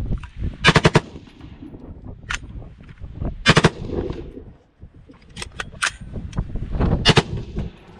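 A 5.56 AR-15 with a Rare Breed forced-reset trigger firing in short, quick strings of shots with breaks between them. The stoppages are put down to a faulty magazine.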